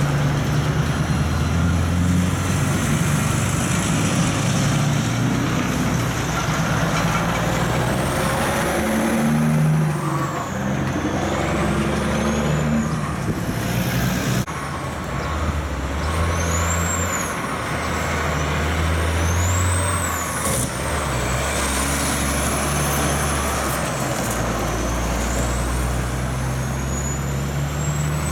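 Heavy diesel trucks running as they pass and pull away: logging trucks and a flatbed truck laden with bags of cement. A high whistle rises and falls again and again over the engine sound.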